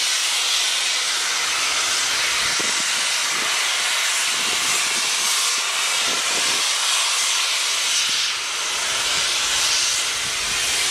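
Steady loud hiss of steam venting from a steam locomotive's open cylinder drain cocks.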